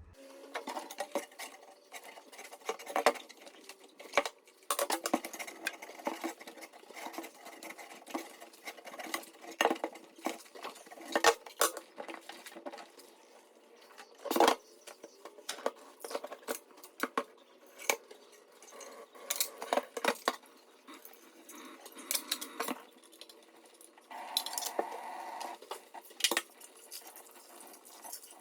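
Dishes and containers from a fridge being handled and washed: irregular clinking and clattering with occasional sharper knocks.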